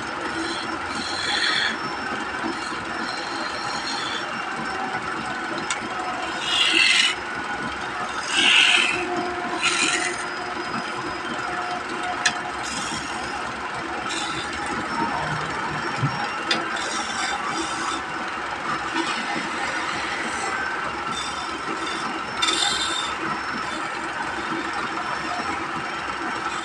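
Wood lathe running steadily while a hand-held turning chisel scrapes against the spinning wood in short bursts, the loudest about seven, nine and ten seconds in and again around twenty-two seconds.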